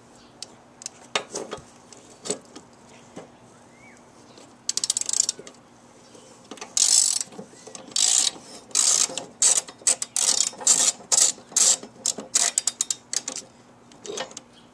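Long ratchet wrench with a 5/8 socket clicking as it is swung back and forth in reverse, backing out the lawn mower's blade bolt on the end of the crankshaft. A few knocks come first, then about halfway through the clicking bursts settle into a quickening rhythm of roughly two a second.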